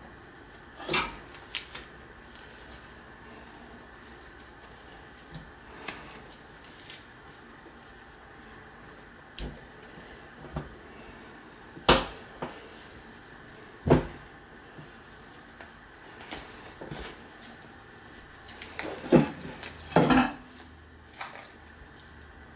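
Scattered sharp knocks and clatters on a stainless steel sink draining board as a rabbit carcass is handled and turned during skinning, about a dozen in all. The loudest come in the middle and in a quick cluster near the end.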